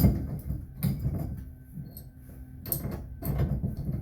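Metal clunks and scraping from a shower stem socket wrench being turned and worked on a seized shower valve stem, a few separate knocks with the busiest stretch near the end.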